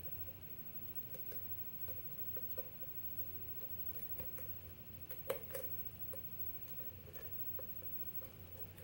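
Faint scattered clicks and ticks of a hook pick working the spring-loaded pins of a six-pin pin tumbler lock under tension, with two sharper clicks a little past five seconds in.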